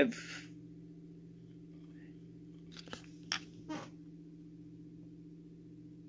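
A few faint clicks and light scrapes, about three seconds in, from steel tweezers handling a tiny brass lock pin, over a steady low hum.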